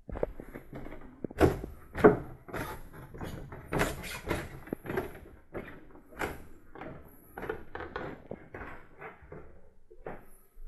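Footsteps climbing a wooden spiral staircase: an uneven run of hollow thuds on the treads, heaviest about one and a half to two seconds in.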